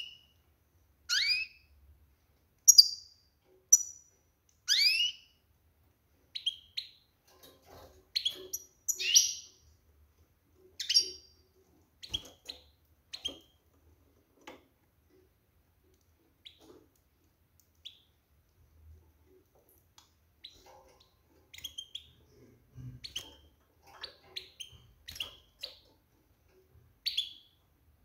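Female European goldfinch calling in a cage: a few loud, sweeping call notes in the first five seconds, then softer scattered chips with a sparse spell in the middle and a busier run near the end. These are the twittering calls of a hen in breeding condition, the kind that stir males to sing.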